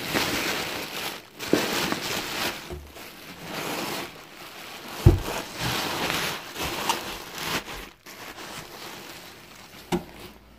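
Bubble wrap and plastic packing crinkling and rustling as a horn bell is worked out of a cardboard box, with a few knocks, the sharpest about five seconds in.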